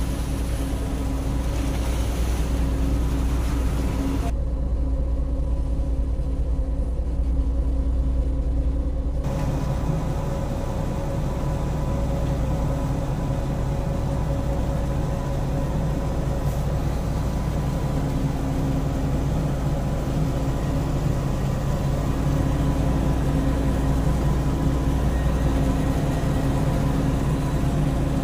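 Steady low drone of a boat's engine running, with a hum of several steady tones over it. From about four seconds in to about nine seconds in, the hiss above the drone drops away, then returns.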